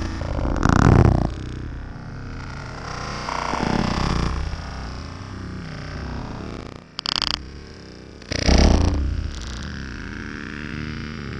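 Kawasaki dirt bike crashing: a heavy impact about a second in, then uneven engine and handling noise, with more loud knocks around seven and nine seconds in.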